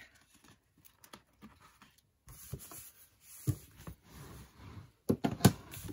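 Paper being pressed and smoothed down onto a freshly glued book page: faint rustling and handling, then a few sharp taps about five seconds in.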